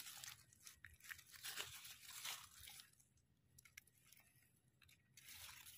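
Faint crunching and scraping as a knife blade scrapes soil off the stem base of a freshly picked white wild mushroom. The scraping goes on for about three seconds, then comes once more, briefly, near the end.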